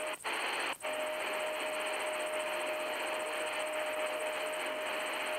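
Tecsun PL-310ET shortwave radio hissing with static, with a steady whistle tone over the hiss. The sound mutes briefly twice in the first second as the radio is tuned to another frequency.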